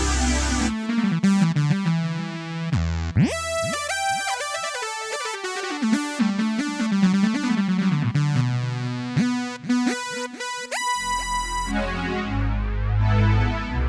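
Casio CT-X700 electronic keyboard playing a synthesizer-style melody, with notes that slide up in pitch a few times. A bass and drum accompaniment drops out about a second in and comes back near the end.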